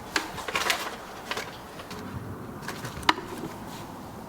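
Scattered sharp clicks and light scraping knocks against a wooden cat tower, irregular, with a cluster in the first second and the loudest click just after three seconds in.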